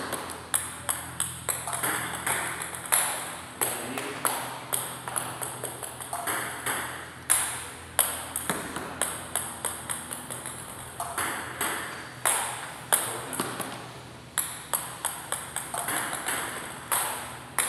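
Table tennis ball clicking off paddles and the table in a steady back-and-forth rally, about two to three sharp clicks a second.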